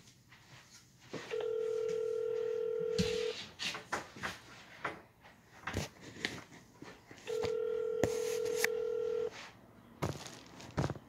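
Telephone ringback tone heard over a phone line: two steady rings, each about two seconds long with about four seconds between them, the standard North American ringing cadence of a call not yet answered. Short clicks and knocks fall between the rings.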